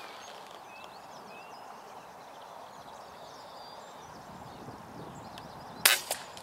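An FX Hybrid air rifle fires once near the end: a sharp crack, then a second short crack a split second later. Before the shot, a steady outdoor hush with a few faint bird chirps.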